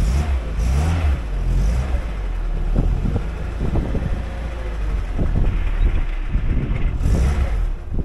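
Lada Niva's four-cylinder petrol engine running at low revs as the car rolls slowly over a rough, snowy dirt track. The engine note rises and falls a little, and the wheels make scattered knocks and rustles over the uneven ground.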